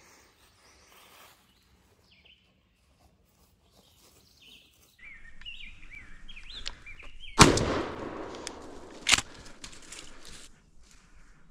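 Small birds chirping, then a loud shotgun blast about seven seconds in that rings out and fades over a couple of seconds, followed by a second, shorter sharp bang under two seconds later: a turkey hunter's camouflaged shotgun fired at a bird.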